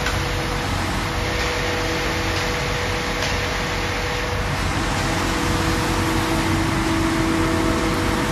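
Concrete mixer truck's diesel engine running at raised revs to turn the drum while concrete is discharged down a chute: a steady hum with a steady whine that grows stronger in the second half.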